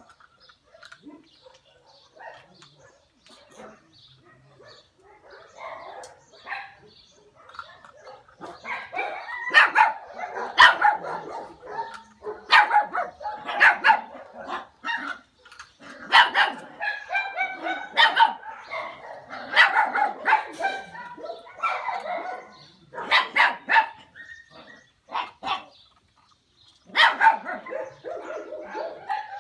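Miniature Xoloitzcuintli puppies barking and yipping at play. Faint scattered sounds at first give way, about eight seconds in, to repeated bursts of high, sharp barks.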